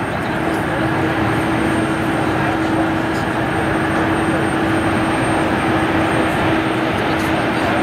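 Boeing 737 jet engines running at low power as the airliner taxis: a steady rushing noise with one constant droning tone through it.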